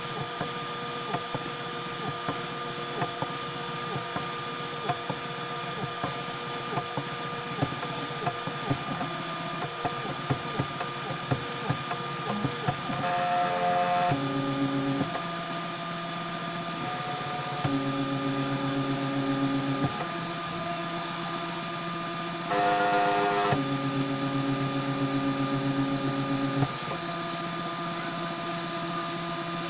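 Homemade RepRap-style 3D printer printing, its stepper motors driving the print head. For the first dozen seconds it makes many quick short moves with rapid ticking. After that come longer moves, each a steady whine that changes pitch every few seconds, over a constant high hum.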